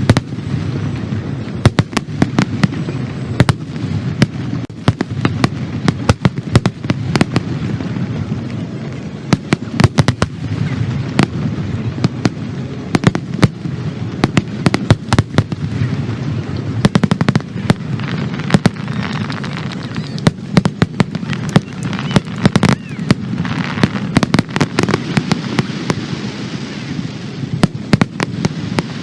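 Aerial fireworks display: a rapid, continuous barrage of sharp bangs, several a second, over a steady low rumble, with stretches of hissing crackle about two-thirds of the way through.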